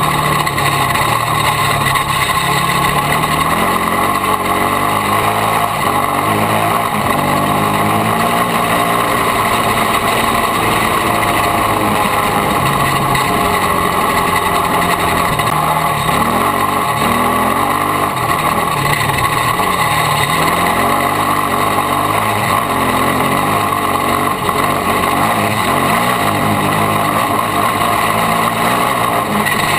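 Yamaha YFZ450 sport quad's single-cylinder four-stroke engine under riding load, revving up and falling back again and again as the throttle is worked. It is heard close up from a camera on the quad's front end.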